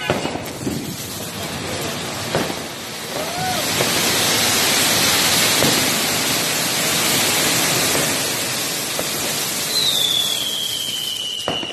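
Several flower-pot (anar) fountain fireworks spraying sparks with a loud, steady hiss, a few sharp cracks about a second and two seconds in. Near the end a high whistling tone slowly falls in pitch.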